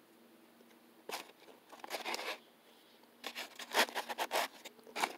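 Metal knife and fork cutting food on a paper plate, a run of short scraping strokes starting about a second in.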